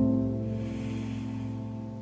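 Background music: a held low chord that sets in suddenly at the start and slowly fades.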